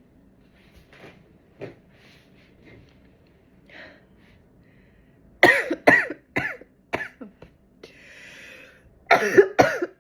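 A woman's sneezing fit set off by chhinkni, a sneeze-inducing herb. After soft sniffs and breaths, a quick run of about six short, sharp sneezes starts about halfway in, then a drawn in-breath and another quick run near the end.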